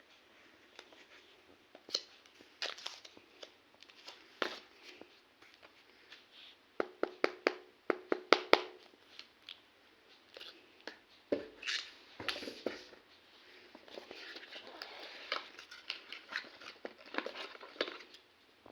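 A tablet's packaging being handled and opened: sharp clicks and taps on the box, with a quick run of clicks about halfway, and stretches of crinkling and tearing of wrapping near the end.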